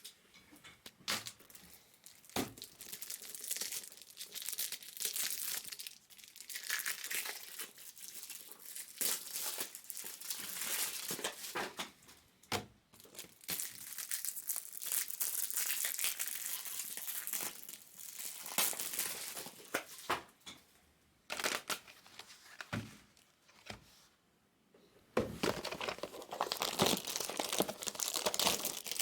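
Foil wrappers of Bowman Chrome Sapphire trading-card packs being torn open and crinkled by hand, with scattered sharp clicks and taps. The crinkling stops briefly about four-fifths of the way through, then starts again louder.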